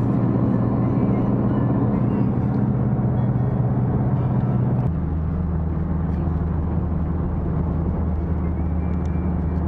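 Car engine and road noise heard inside the cabin of a moving car: a steady low drone that shifts abruptly to a lower pitch about five seconds in.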